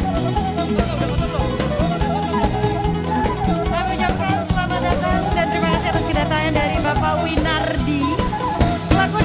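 Batak band music with a steady drum-kit beat; a high wavering melody line comes in about four seconds in.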